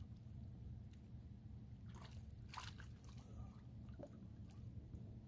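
Faint rustling and clicking of a fishing landing net being lifted and handled at the dock's edge, a few brief clicks about two seconds in and one more near four seconds, over a low steady rumble.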